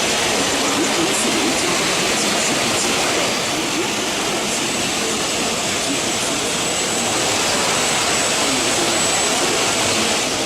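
Four-axis CNC machining center running, a steady rushing noise like coolant spray and cutting, with a thin high whine for a few seconds in the middle.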